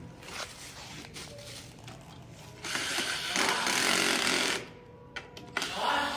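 Cordless drill-driver running in two bursts as it drives a bolt into a scooter's handlebar clamp: a run of about two seconds a little under halfway in, then a shorter one near the end.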